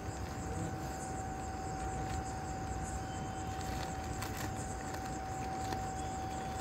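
Steady low background hum with one constant mid-pitched tone held unbroken throughout, and a few faint clicks and scrapes.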